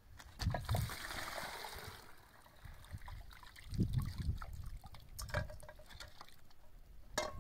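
Water trickling, with low thuds and a few sharp clicks, the loudest click near the end.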